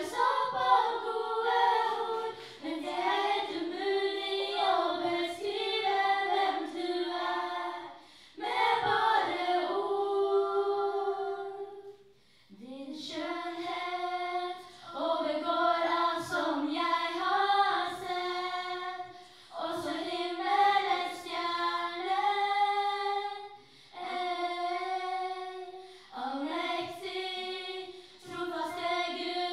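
A small group of young women singing in harmony into microphones, unaccompanied, in long held phrases broken by short pauses for breath.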